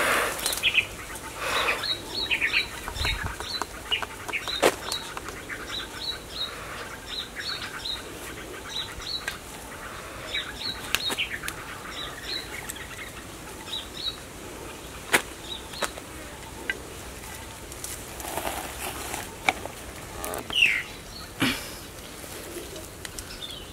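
Dry, fibrous palm-trunk material being torn apart and crumbled by hand: irregular rustling and crackling with sharp snaps, the clearest about four and a half seconds in and about fifteen seconds in.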